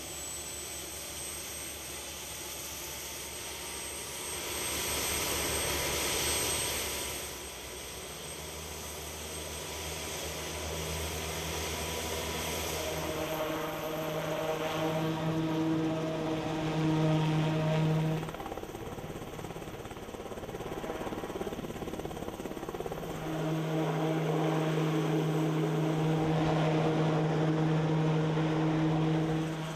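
Piasecki X-49A compound helicopter in flight: steady rotor and engine noise with a droning hum. The sound changes abruptly about halfway through and twice more, as between different shots.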